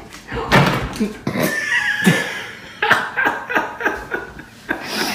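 Two cats scuffling on a tabletop and one jumping down: a string of knocks and thumps, with a person laughing and a brief high-pitched cry about a second and a half in.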